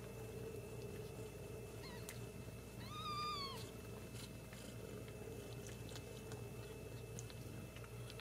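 Newborn Ragdoll kitten giving one short, high-pitched mew about three seconds in while nursing, with a fainter brief squeak just before it. A steady low hum runs underneath.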